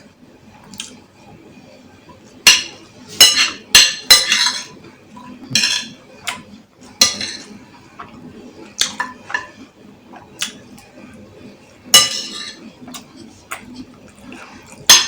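Cutlery clinking and scraping against a dish while eating, in a string of sharp separate strikes, the loudest cluster a few seconds in and another near the end.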